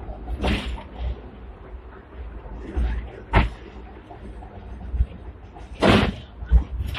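Hong Kong double-decker electric tram running, heard from inside the lower deck: a low rumble broken by short clatters and knocks. The sharpest come about half a second in, near the middle, and about six seconds in.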